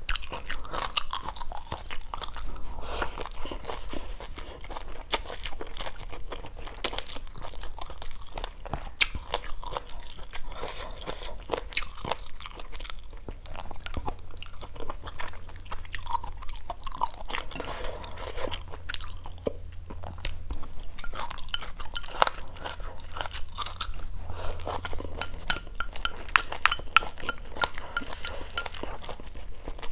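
Close-up chewing and crunching of a meal of rice, lemongrass-chili stir-fried chicken gizzards and stir-fried asparagus, with many irregular crisp crunches and wet mouth sounds.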